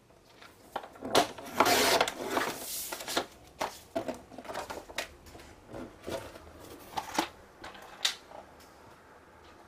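Paper and cardstock being handled on a scoring board: a loud rustling slide of paper about a second in, then scattered light taps and soft paper rustles.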